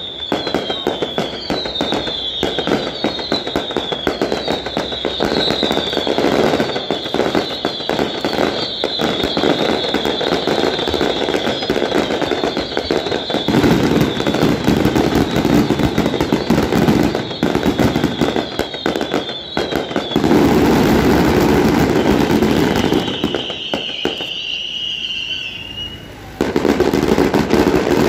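Daytime fireworks going off in a rapid, unbroken string of crackling bangs. A high falling whistle repeats over them for much of the time.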